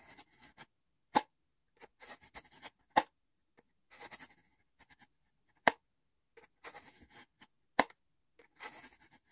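Kitchen knife blade drawn repeatedly through the finishing (polishing) slot of a three-stage handheld knife sharpener: about four strokes, each a sharp click followed by a short scrape.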